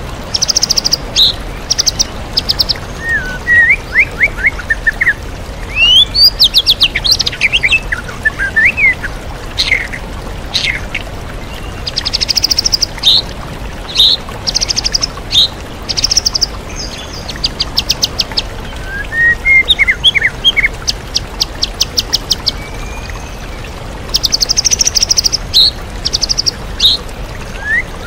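White-rumped shama (murai batu) singing a varied song of rapid trills, chirps and sweeping whistled phrases, filled with mimicked calls of other songbirds. A steady rush of waterfall noise runs underneath.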